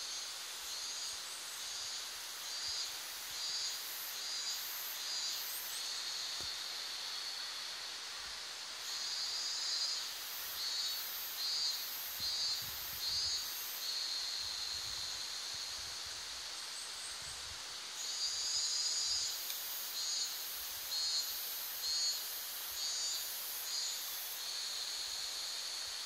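Cicadas singing: a shrill, high-pitched song that pulses about one and a half times a second in phrases several seconds long, three times over, with a steady drone between the phrases.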